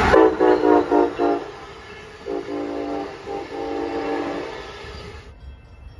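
Train horn sounding a rapid run of about four short blasts, then, after a pause, longer blasts broken by a short gap.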